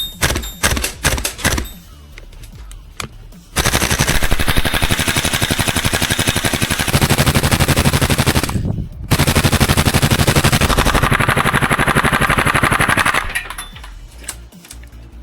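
Airsoft gun firing: a few quick single shots, then two long full-auto bursts of about five and four seconds, with a short break between them.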